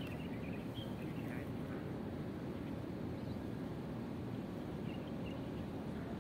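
Steady low rumbling outdoor ambience beside open harbour water, with a few faint short high chirps in the first second or so and again about five seconds in.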